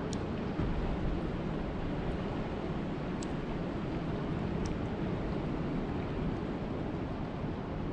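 Steady rain, an even rushing noise heaviest in the low range, with three faint sharp ticks of drops scattered through it.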